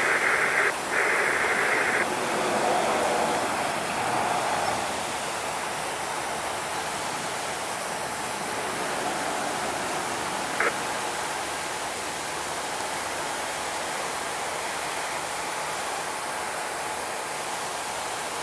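Steady rushing background noise with no bell or other tone in it. A louder hiss comes in the first two seconds, and a single sharp click about ten and a half seconds in.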